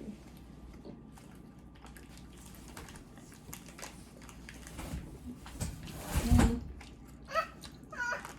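Quiet room with small handling clicks, one heavier thump past the middle, then two short rising squeaks near the end.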